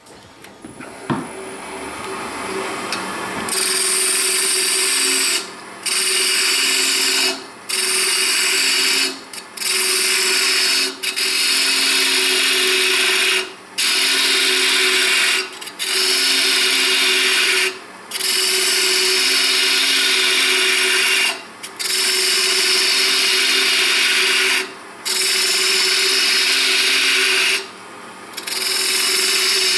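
Wood lathe spinning up, then a parting tool cutting into a spinning hardwood blank to form a tenon, in about eleven loud passes of one to three seconds each with short breaks between as the tool is eased off. Each pass is a harsh scraping hiss over a steady hum.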